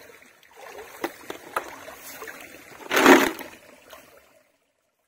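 Shallow muddy water sloshing and splashing as hands work in it, with a few sharp clicks and one louder splash about three seconds in. The sound cuts off abruptly a little over four seconds in.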